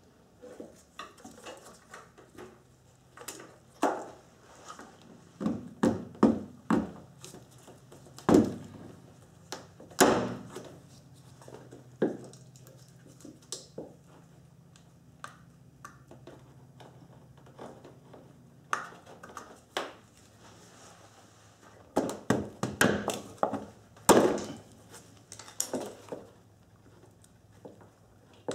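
Irregular plastic clicks, taps and knocks as a 1997 Nissan Maxima's side combination lamp housing and bumper trim are handled, with a few sharper knocks and a faint low hum through the middle.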